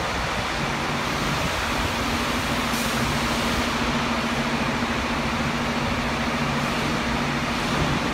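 Steady din of truck-assembly-line machinery in a large hall: a broad rushing noise over a low steady hum, with a lower drone that pulses on and off in an even rhythm.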